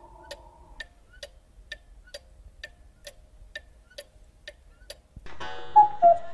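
Cuckoo clock ticking, about two ticks a second. About five seconds in, a louder chiming tune comes in over it as midnight arrives.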